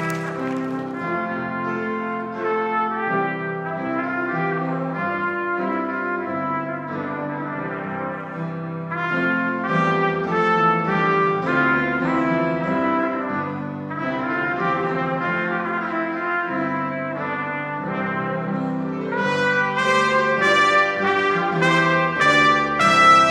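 Trumpet playing a melody over a Yamaha grand piano accompaniment; the music grows louder and brighter near the end.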